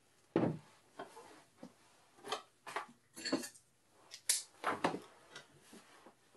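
A spiral-bound paper notebook handled on a table: a thump about half a second in, then a series of short paper rustles and page flips, the sharpest a little past the middle.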